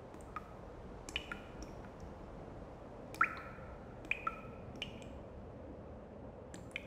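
Water drops plinking into a pool in a cave: about a dozen irregular drips, each a sharp click with a brief ringing tone, the loudest about three seconds in, over a steady low hiss.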